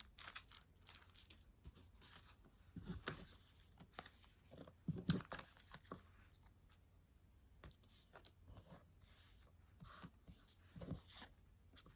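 Faint, scattered rustling and tearing of a small paper or plastic packet being opened by hand, in short crackles with quiet gaps between them.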